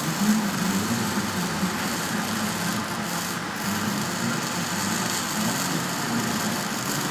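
A steady rough rasping noise with a low hum beneath it.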